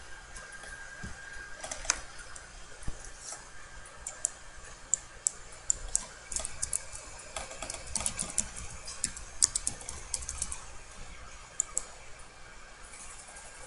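Typing on a computer keyboard: a run of irregular keystrokes, thickest from about four to eleven seconds in.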